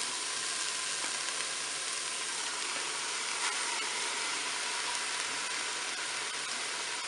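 Chicken pieces sizzling steadily in hot olive oil in the bowl of a Cookeo multicooker on its browning setting.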